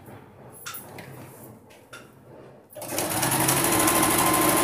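Singer domestic sewing machine stitching a seam through cotton fabric, starting up nearly three seconds in and running steadily at a fast, even needle rate. Before it starts, only faint rustling of the fabric being positioned.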